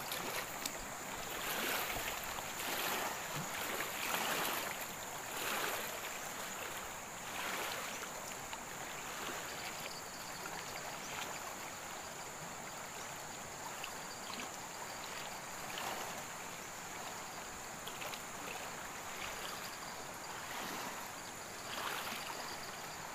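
Shallow river current flowing and splashing in a steady hiss, with louder surges in the first few seconds. A thin, steady high-pitched whine sits above the water.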